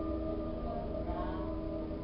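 Piano chord ringing on and slowly fading after being struck, with no new note played until a fresh note right at the end.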